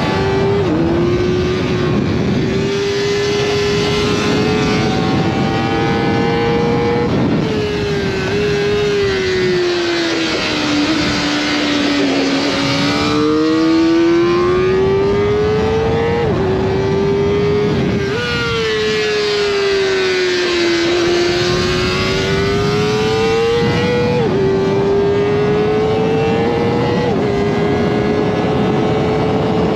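Kawasaki Ninja ZX-4RR's four-cylinder engine running hard at high revs on track, its pitch climbing through the gears with quick drops at upshifts. Around the middle the pitch falls away for a few seconds as the bike slows for corners, then climbs again.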